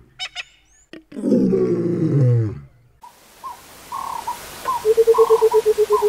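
Burchell's coucal giving its bubbling call: a fast, even run of low hoots, about ten a second, starting nearly five seconds in and dropping slightly in pitch, with fainter higher bird calls behind. Before it, over the opening, a deep animal call slides down in pitch.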